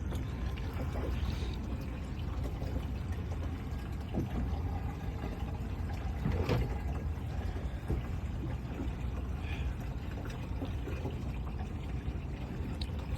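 Water lapping and sloshing against the hull of a small drifting fishing boat, over a steady low rumble.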